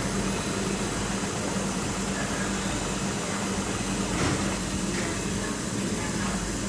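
Brother DCP-T510W inkjet printer running its print-head cleaning cycle: a steady mechanical hum and hiss, with a light click about four seconds in.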